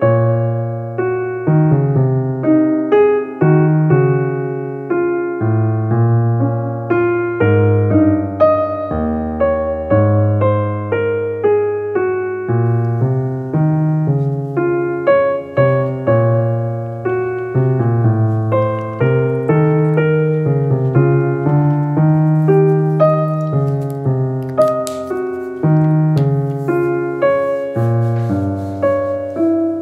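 Background piano music: a gentle melody over a bass line, notes changing every second or so.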